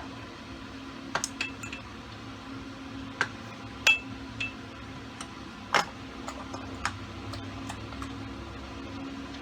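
Metal tools and engine parts clinking and tapping during motorcycle engine work: about a dozen irregular sharp clicks, a few with a brief metallic ring, over a steady low hum.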